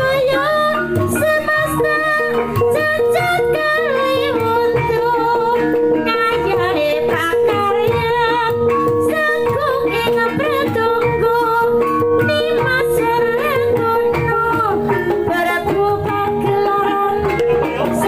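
Javanese gamelan playing a gending: struck bonang kettle gongs and kendang drum with a long held tone, under a sung melody that winds and glides in pitch.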